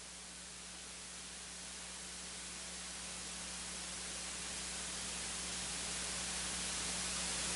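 Steady hiss of the recording's noise floor with a low electrical hum underneath, growing slowly louder, with no speech.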